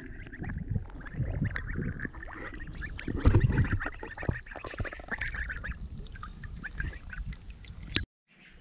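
Month-old goslings giving rapid, high peeping calls as they swim, with water lapping and splashing close by, loudest about three seconds in. The sound cuts off abruptly near the end.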